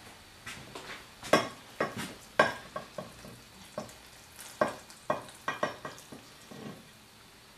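Vegetable stock poured from a glass measuring jug into a glass baking dish of stuffed vine leaves: a run of short, irregular splashes and drips.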